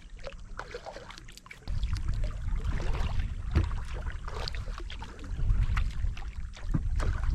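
Kayak paddling: paddle blades dipping and splashing, with water trickling off the blades and along the hull. A low rumble comes in suddenly about two seconds in and stays under the splashes.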